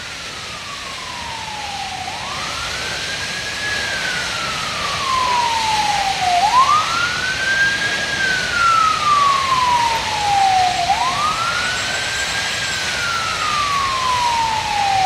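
Fire engine siren on a slow wail, each cycle rising quickly and then falling slowly, about every four seconds, growing louder as the engine approaches. A steady rushing noise runs underneath.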